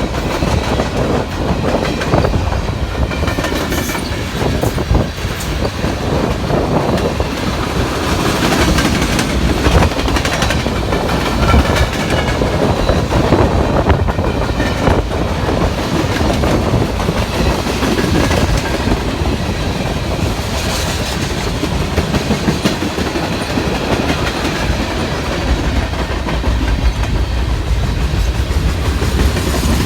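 Cars of a CSX manifest freight train rolling past steadily, wheels clacking over the rail joints, with a faint wheel squeal at times.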